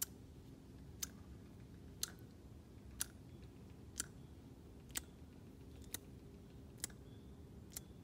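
A person's sharp mouth clicks imitating a loon smacking its beak, nine of them about a second apart, the last few coming slightly faster.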